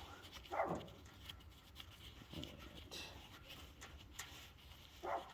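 A dog barking twice, faintly, about half a second in and again near the end, over light clicks of chainsaw parts being handled.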